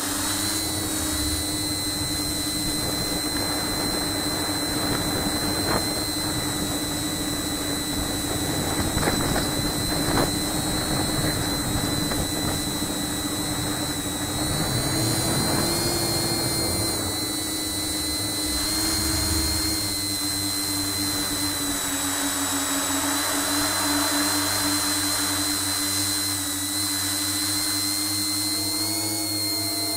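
Multirotor tricopter's three electric motors driving Graupner 9x5 tri-blade propellers in flight, a steady whine whose pitch drifts slightly up and down with throttle, over a low rushing noise.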